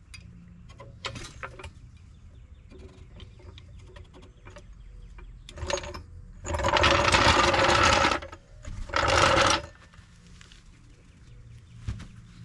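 Impact wrench run in two bursts, the first about a second and a half long and the second shorter, with a few small clicks and knocks of tool handling before and after.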